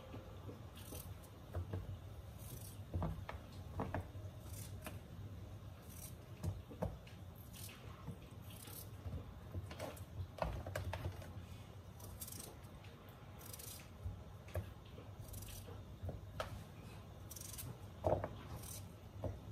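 Small kitchen knife cutting peeled raw potatoes into large chunks held in the hand, with irregular crisp cuts and pieces dropping into a plastic bowl. A low steady hum runs underneath.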